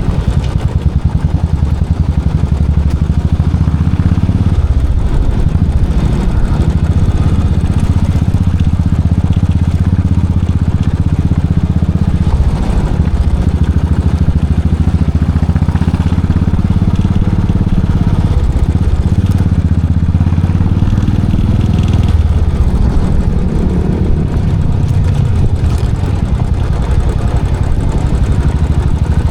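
Royal Enfield Classic 500's single-cylinder engine and exhaust running steadily with a deep, low exhaust note; the revs shift a little about two-thirds of the way through.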